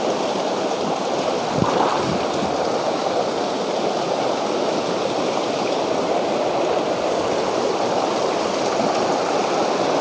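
Water rushing steadily over the rocks of a mountain stream.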